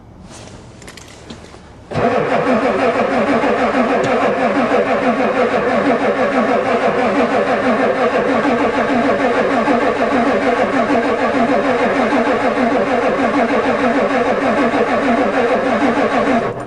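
Starter cranking a cold Ford diesel truck engine, a steady whirring with a rhythmic pulse from the compression strokes, starting about two seconds in and stopping abruptly near the end without the engine firing. No click from the new glow plug controller's solenoid is heard, which the owner takes as a sign that the controller may not be working.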